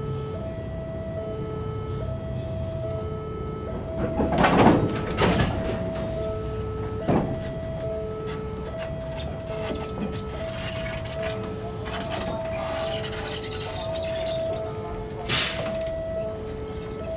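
Railway passenger coaches rolling slowly past, with sharp knocks from the wheels and couplings, loudest between about four and five seconds in, again near seven seconds and near the end, and a stretch of hiss in the middle. Over it a two-tone electronic warning signal alternates steadily between a low and a high note, each held a little under a second.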